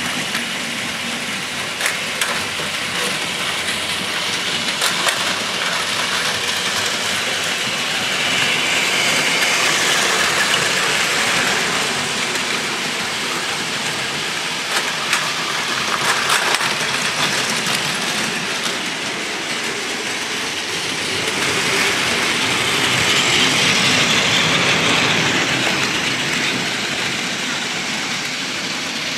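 Several battery-powered Plarail toy Shinkansen trains running on blue plastic track: a steady whir of their small motors and wheels rattling over the track, with occasional sharp clicks. It swells twice as trains pass close by.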